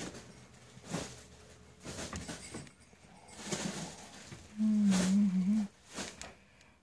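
Short scraping and clicking sounds from a blade scoring the outer jacket of RG6 coaxial cable, done so the connector's crimp barrel will slide over it. About five seconds in, a brief low wavering hum lasting about a second is the loudest sound.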